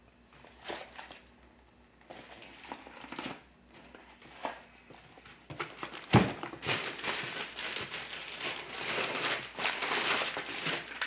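Plastic bags and packaging crinkling and rustling as parts are handled in a cardboard box, sparse at first and dense in the second half. One sharp thump comes about six seconds in, as a small boxed set of brake pads is set down on the workbench.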